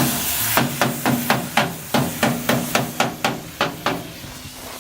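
A hammer striking metal in a quick run of about a dozen blows, roughly four a second, each with a short ringing tone. The blows stop about four seconds in, leaving a steady hiss.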